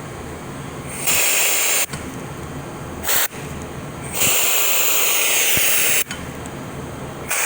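Compressed-air blow gun blasting in four sharp hisses, two short, one long of about two seconds and one short at the end, blowing out a freshly tapped bolt hole in a transmission case. A steady low shop hum runs underneath.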